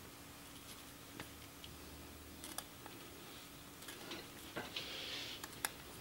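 Pocketknife blade cutting small chips from a linden twig: faint scraping with a few light clicks, a longer scrape near the end.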